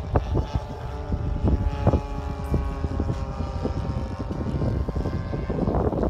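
Radio-controlled model warbird's engine droning steadily as the plane flies high overhead, with wind gusting on the microphone.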